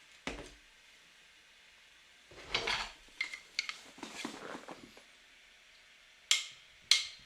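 Small metal parts and tools clinking and clattering as they are handled, with two sharp clicks near the end.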